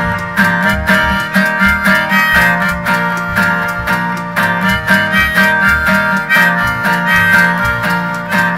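Old-time string-band instrumental: a harmonica plays the melody over a strummed acoustic guitar, while a washboard is scraped in a steady, even rhythm.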